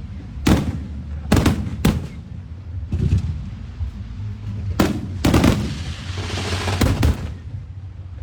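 Fireworks bursting: about seven loud, sharp bangs at irregular intervals, some in quick pairs, with a stretch of hissing about two thirds of the way through, over a steady low rumble. The bangs stop near the end.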